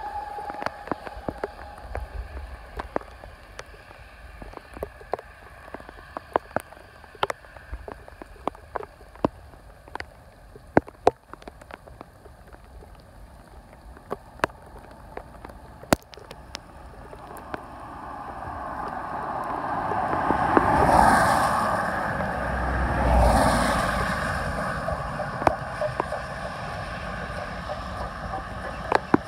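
Scattered raindrops tapping close to the microphone. From a little past halfway, the rising rush and rumble of an approaching steam train, which swells twice and stays loud to the end.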